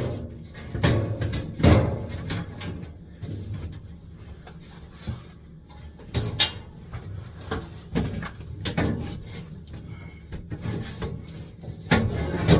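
Sheet-metal duct fitting being pushed and worked into place: irregular metal knocks and scraping, with a few sharper bangs about a second in, midway and near the end.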